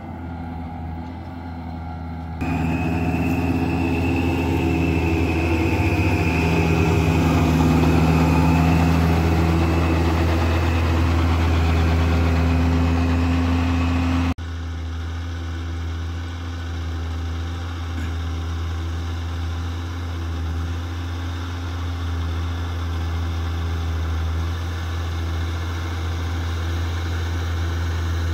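John Deere 6210R tractor's six-cylinder diesel engine running steadily under load as it pulls a mounted plough through the soil, with a high whine over the engine note. The sound gets abruptly louder about two seconds in and drops back suddenly about halfway through.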